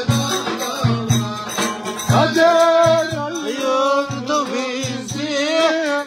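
Live Turkish folk music: a davul beating a steady rhythm under a plucked long-necked lute, with a sustained, wavering melody line coming in about two seconds in.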